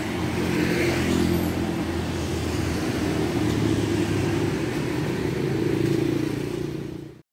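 Street traffic with a motor vehicle engine running steadily close by; the sound cuts off abruptly near the end.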